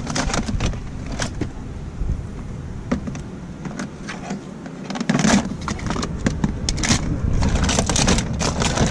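Small plastic toys clicking and clattering against each other and the tub as a hand rummages through a plastic storage bin, with a steady low rumble underneath.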